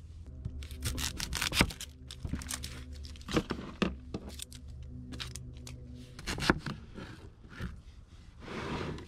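Food-prep handling on a plastic cutting board: dry onion skin being peeled and torn, crackling, among scattered sharp clicks and knocks, over soft background music.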